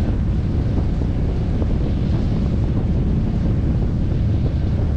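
Steady wind buffeting the microphone of a camera fixed to a parasail harness, a dense low rumble from the air rushing past in flight.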